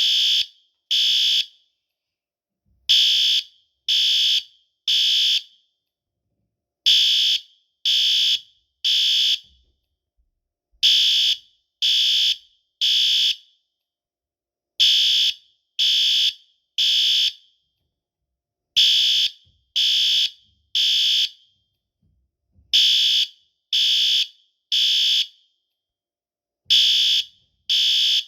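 System Sensor SpectrAlert Advance PC2R ceiling-mount horn strobe sounding in the temporal-three evacuation pattern. It gives three high-pitched horn blasts of about half a second each, a second apart, then a short pause, repeating every four seconds.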